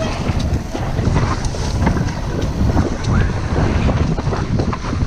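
Wind buffeting the microphone over a steady low rumble of mountain-bike tyres rolling fast down a dirt trail, with frequent clicks and rattles from the bike as it goes over bumps.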